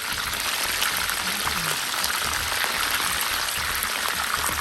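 Food frying in hot oil in a pot, with a steady sizzle and fine crackling.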